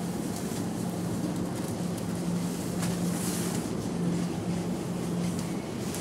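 Steady whir of the battery fan that keeps an inflatable T. rex costume blown up, with a faint hum that comes and goes and a couple of light clicks.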